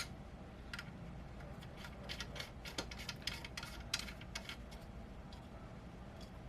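Faint, scattered light clicks and taps of small metal mounting-bracket parts and screws being handled and fitted, busiest in the middle.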